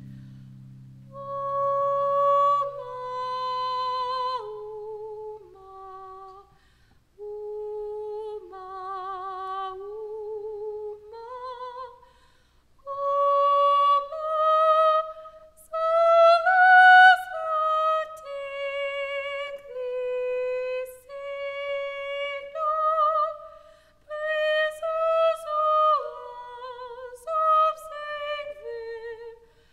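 A single high voice singing a wordless melody, unaccompanied: held notes with a wide vibrato, moving up and down in short phrases with brief breaths between them.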